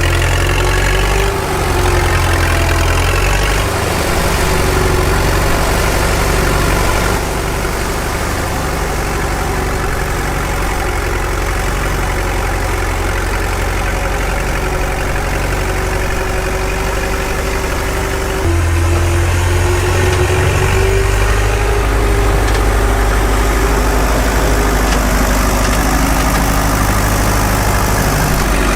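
An engine running steadily, like a tractor at idle, its note shifting a few times and growing louder and deeper about two-thirds of the way through.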